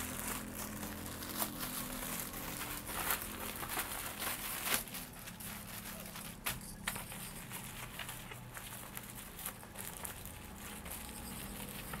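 Plastic packaging crinkling and rustling in irregular crackles as a plastic mailer bag is torn open and a plastic-wrapped item is pulled out and unwrapped.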